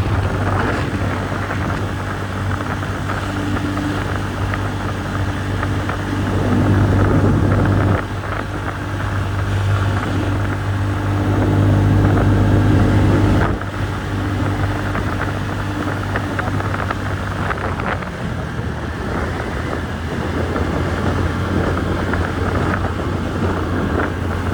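TVS Ntorq 125 scooter's single-cylinder engine running on the move. It pulls louder twice and drops off suddenly each time the throttle closes, with some wind on the microphone.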